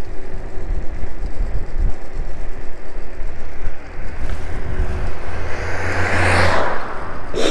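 Steady wind and road rumble from riding an electric scooter, with a car passing close by in the opposite direction about six seconds in, its noise swelling and quickly fading.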